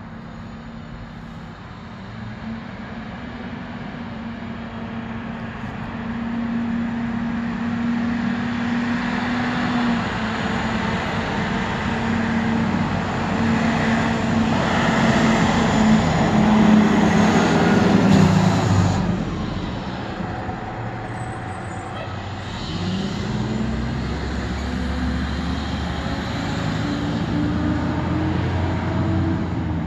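Fire engine's diesel engine running steadily, with a car passing close by near the middle, its noise swelling and cutting off sharply. In the last third the fire engine's engine rises in pitch as it pulls forward.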